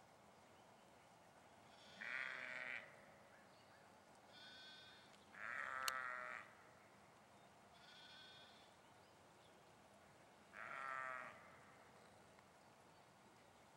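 Sheep bleating: five separate bleats a couple of seconds apart. Three are louder with a wavering, quavering pitch, and two are fainter and higher.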